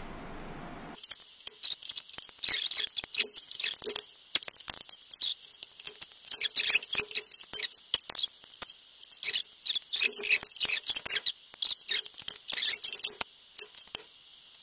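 Hand tools squeaking and clicking against the plastic housing of a motorcycle turn signal in quick, irregular bursts, as a stubborn part inside is worked loose.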